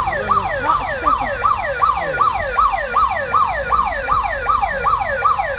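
Electronic siren sounding in a fast yelp: one pitch sweep repeating nearly three times a second, with a low street rumble underneath.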